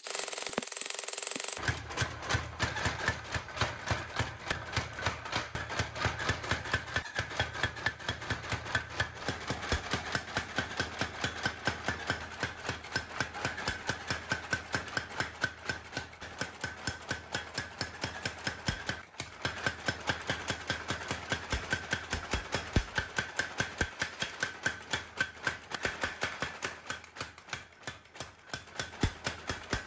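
Steady, fast hammering on hot steel as a bearing ball is forged into a knife blade, the blows coming in an even rhythm of a few a second. A steady low hum runs beneath the blows.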